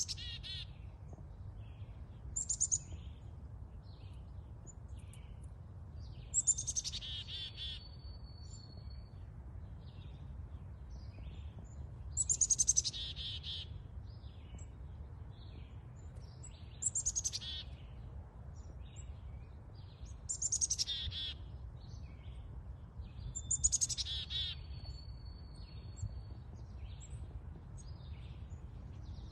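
A songbird singing the same short phrase over and over, about seven times, each a high trill that drops in pitch and lasts about a second, several seconds apart. A steady low rumble runs underneath.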